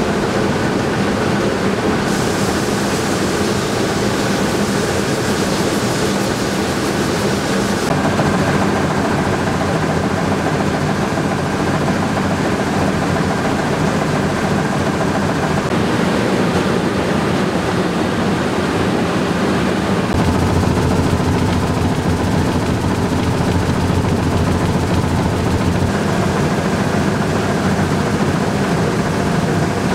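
Rice mill machinery running steadily with a continuous hum and a broad rushing noise. The mix changes character a few times.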